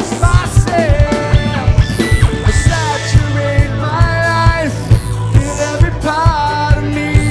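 Live worship rock band playing: a male lead singer over a steady drum beat, bass and guitar, heard through a soundboard mix.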